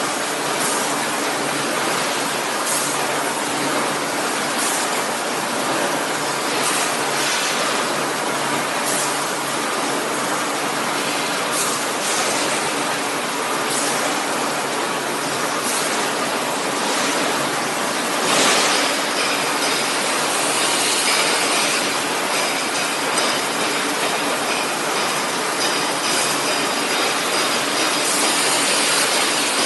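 Packaging line machinery running: a steady mechanical din with short hissing bursts about every two seconds, a louder burst about two-thirds of the way through, and a high whine that comes and goes after it.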